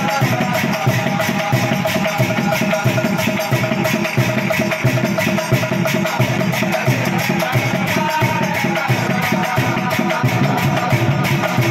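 Nagara Naam ensemble: large bell-metal cymbals clashed in a fast, steady rhythm together with nagara drums, with a group of men's voices singing along.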